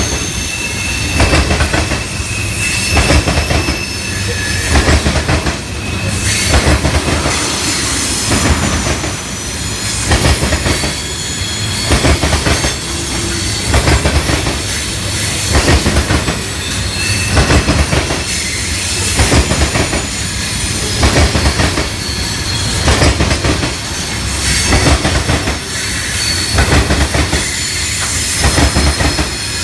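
Train cars rolling past close by, a heavy low rumble with a clatter of wheels about every two seconds as each car goes by, and thin metallic wheel squeal over the top.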